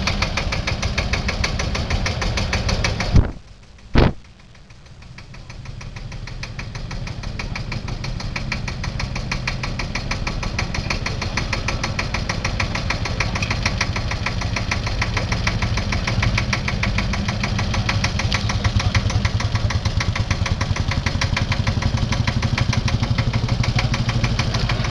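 Vintage tractor diesel engine running with a fast, even knock. About three and four seconds in there are two sharp clicks and a brief drop-out, after which the engine sound builds back up and runs steadily.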